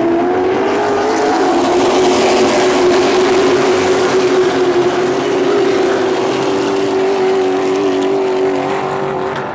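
A pack of stock cars racing together at full throttle: many engines blending into one loud, steady drone that climbs slightly in pitch in the first second or so as the field accelerates, then holds.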